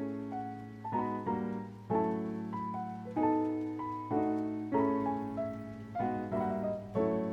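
Background music: gentle piano-like keyboard chords, struck roughly once a second and left to ring, over a steady low tone.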